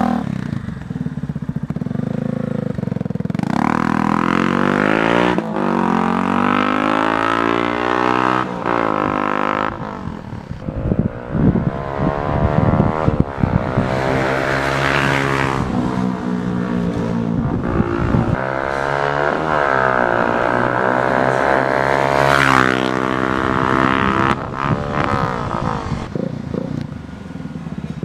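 Yamaha Fazer 250's single-cylinder four-stroke engine through a Hurricane full aftermarket exhaust, revving up hard in several long climbs in pitch. Each climb falls back before the next, and the revs drop away near the end.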